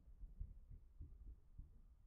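Near silence broken by four faint, dull low thuds, spaced unevenly over two seconds.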